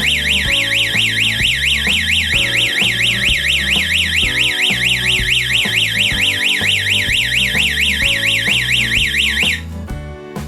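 Electronic siren of a home security alarm system: a loud, fast warbling tone sweeping up and down about four times a second, sounding for about ten seconds and then cutting off suddenly near the end as the alarm's timer shuts it off. Guitar background music plays underneath.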